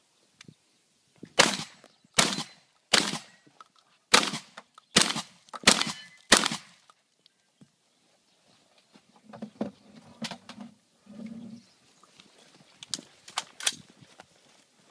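Seven shotgun shots fired in quick succession, a bit under a second apart, followed by quieter knocks and a few sharp clicks of gun handling.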